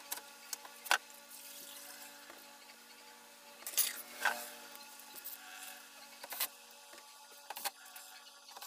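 Scattered sharp clicks and taps of small screws and a thin metal bezel frame being handled on an LCD TV panel, the loudest about a second in and around four seconds in.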